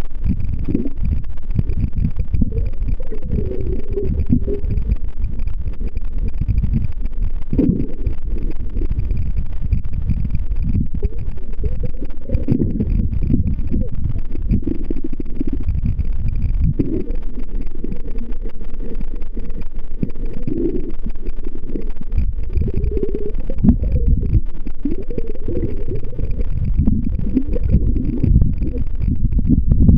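Low, uneven rumble of water noise picked up by a camera held underwater.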